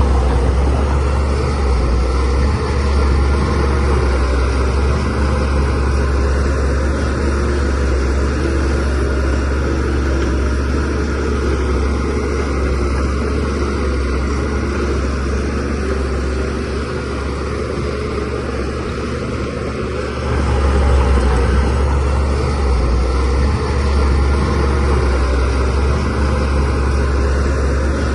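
Bulldozer's diesel engine running steadily with a deep rumble as it works, growing louder about two-thirds of the way in.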